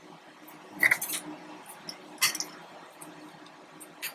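A few sharp metallic clicks and clinks, the loudest about a second in, as the metal motor mount on an Epilog Fusion M2 laser's X-axis gantry is pushed into place and an Allen key is set into its mounting screw.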